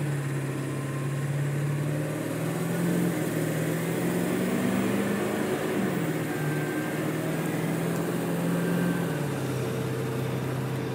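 A 7.3-litre Powerstroke V8 turbo diesel in a 2001 Ford F450, with a straight 4-inch stainless exhaust and no catalytic converter, pulling the truck up the street, heard from inside the cab. The engine note rises as the truck accelerates, dips and levels off about six seconds in, and drops again near the end.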